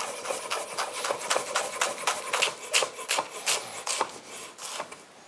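Chef's knife finely chopping Napa cabbage on a wooden cutting board: a run of quick knife strokes, several a second, tapping against the wood, dying away shortly before the end.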